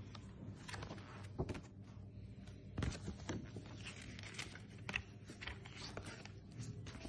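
Paper and thin card rustling as printed cards and leaflets are shuffled and flipped in the hands, with sharp crinkles about a second and a half in, near three seconds and near five seconds. A low steady hum sits underneath.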